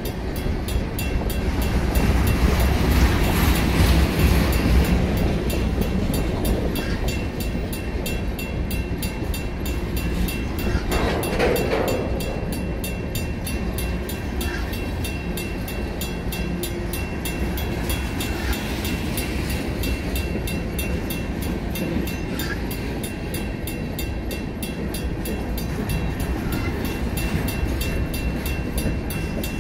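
Freight train of center-beam flatcars rolling past with a steady low rumble of wheels on rail. Over it, the grade crossing's first-generation WCH mechanical bell rings in quick, even strokes.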